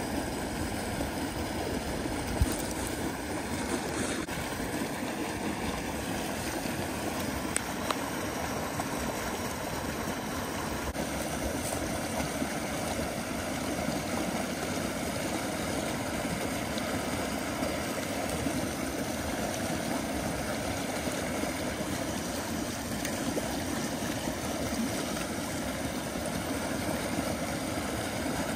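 Small spring creek running steadily over a shallow riffle, with one sharp click about two seconds in.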